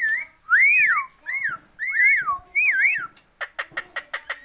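Javan myna giving a string of about five clear whistles that rise and fall in pitch, then a rapid run of about ten sharp clicks near the end, the 'tok tok tok' sound it has learned to copy.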